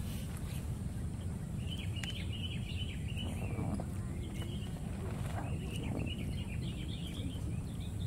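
Outdoor ambience: birds twittering in two spells of quick chirps, about two and six seconds in, over a steady low rumble.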